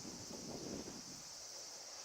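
A steady, high-pitched chorus of summer insects, with wind buffeting the microphone during the first second.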